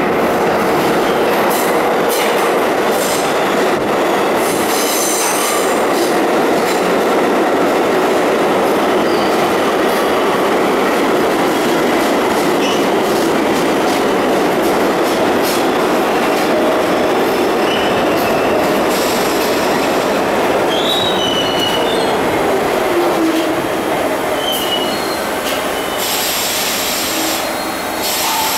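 R62 subway train pulling into an underground station, its wheels running and rattling over the rails in a steady rumble. In the second half come brief high-pitched wheel squeals and a falling whine as it brakes, and it eases to a stop near the end.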